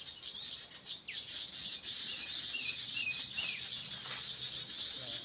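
Birds chirping and calling over a steady high insect buzz, with a couple of falling whistles and a quick run of short chirps about halfway through.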